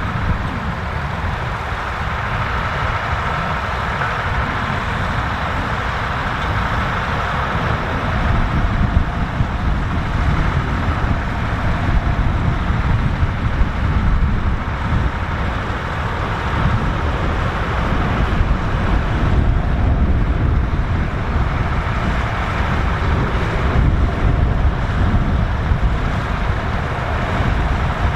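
Massey Ferguson 3070 tractor's diesel engine running steadily, with a heavy low rumble.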